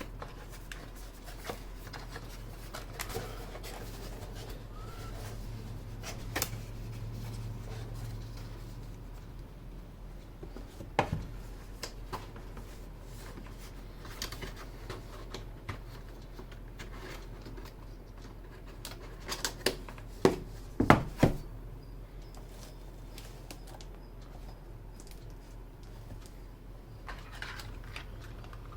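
Scattered single clicks from the Skyloong SK61 mechanical keyboard, with a few sharper clicks close together about twenty seconds in, over a low steady hum.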